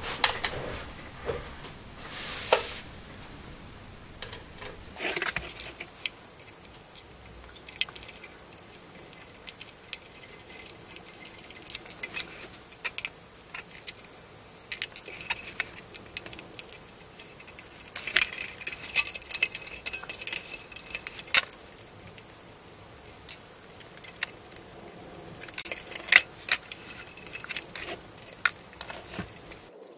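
Small metal screws and tools clicking and clinking against the metal case of a plasma tweeter as it is unscrewed and its cover taken off. The clinks are scattered, with louder clusters and some brief metallic ringing a little past halfway and again later.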